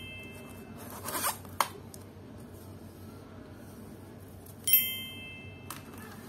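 A bright, bell-like message-notification chime rings once about three-quarters of the way through, its tones fading over about half a second. About a second in comes a short plastic scrape and a sharp click as the laptop keyboard is pried out and lifted from its bay.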